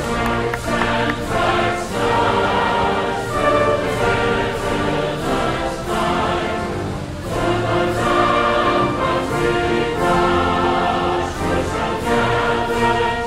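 Music: a choir singing a slow piece with orchestral accompaniment, in long held notes.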